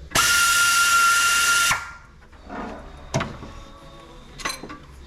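A power tool runs in one burst of about a second and a half with a steady whine, then stops. Two short knocks follow.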